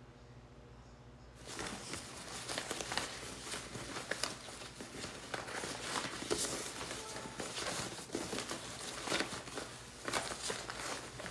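Dense, irregular crackling and rustling, full of small clicks, from things being handled close to the microphone; it begins suddenly about a second and a half in.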